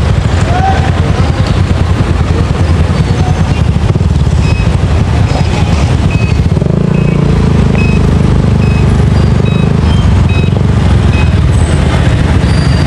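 Motorcycle engine idling close to the microphone, a steady low rumble, with road traffic passing. Through the middle a short beep repeats about twice a second.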